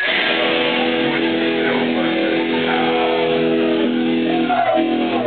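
Amplified electric guitar and bass from a live rock band, holding sustained, ringing notes that break off briefly near the end.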